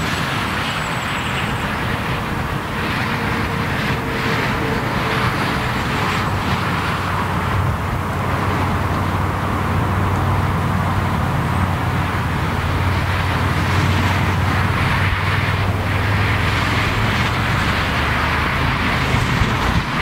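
Steady noise of autobahn traffic: the hiss of tyres from passing cars and trucks, with a low engine drone that grows stronger in the middle and fades again.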